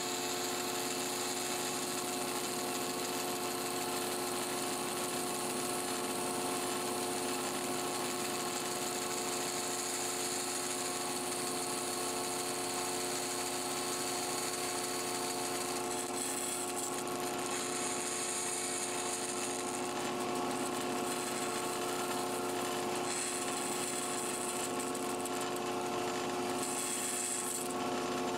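Bandsaw running steadily, its thin blade cutting a lip slot into a wooden crankbait body held in a jig. Several spells of higher-pitched hissing come in the second half as the blade bites into the wood.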